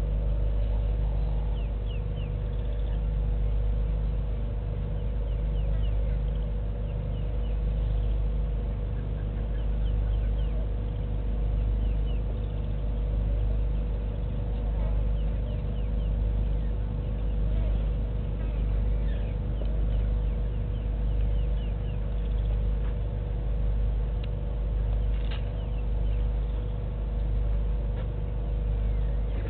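Steady low hum that swells and fades regularly about every two seconds, with a thin steady tone above it and faint, scattered high chirps.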